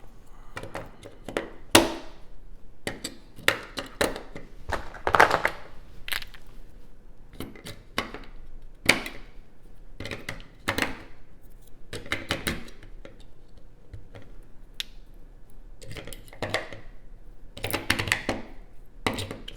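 AA batteries being handled and snapped into an eight-cell battery holder: irregular clicks, taps and rattles of the cells against the plastic case.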